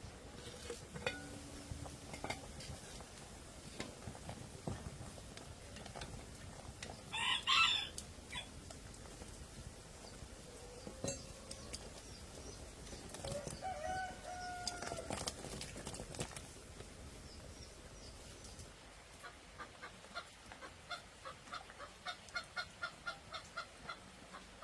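Chickens clucking, with one loud squawk about seven seconds in and a quick run of short clucks, about three a second, near the end.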